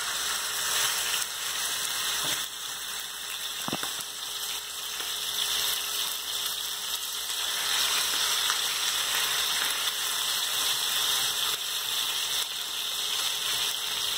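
Chicken breast fillets sizzling steadily in hot oil in a nonstick frying pan as they are laid in with metal tongs, with a single light knock about four seconds in.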